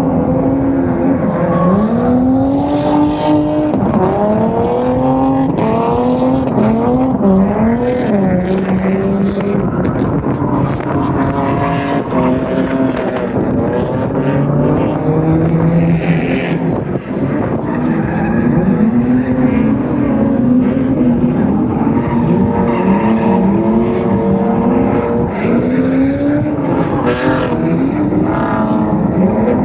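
Drift cars' engines revving hard, pitch climbing and dropping again and again as the drivers work the throttle through the drift, with short bursts of tyre squeal.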